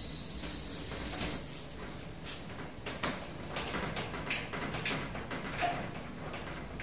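Hand screwdriver turning screws to fix a lock into an aluminium sliding-door frame: irregular small clicks and taps as the tip works in the screw heads.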